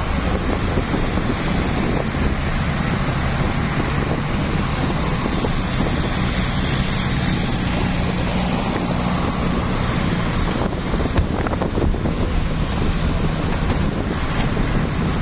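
Steady road traffic noise on a highway, with wind buffeting the microphone and a low engine hum underneath.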